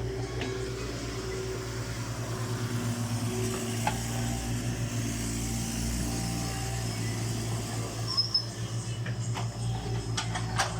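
Diesel engine of a Cat 303 ECR mini excavator running steadily at work, with a few sharp knocks near the end.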